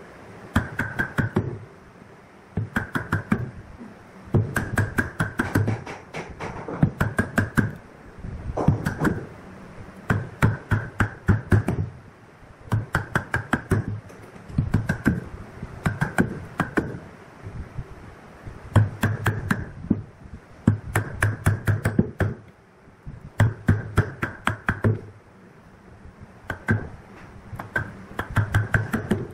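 Wooden mallet striking a wood chisel to chop out the waste between drilled holes in a wooden block: quick bursts of several sharp knocks, repeating about every two seconds with short pauses between.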